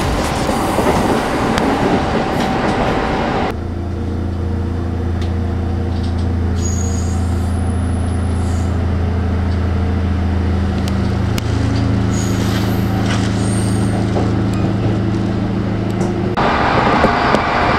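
Kintetsu electric train: dense running noise for the first few seconds. Then, while it stands at a station, a steady low electrical hum with a few faint high tones, its pitch stepping about eleven seconds in. Running noise returns near the end.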